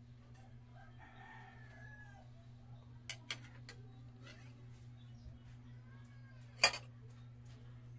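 Steady low hum with a few sharp knocks of a utensil against a cooking pot, two close together near the middle and a louder one about two-thirds of the way in. A faint animal call is heard about a second in.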